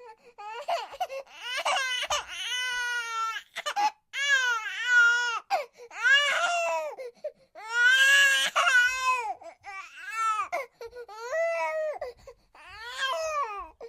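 A baby animal crying: about ten high wailing calls in a row, each rising and then falling in pitch, much like a human infant's cry.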